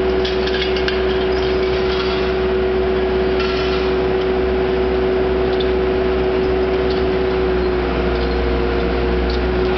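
MAC 1850 scrap baler running with a steady hydraulic hum, and scattered metallic clinks and rattles from the aluminum extrusion scrap being processed.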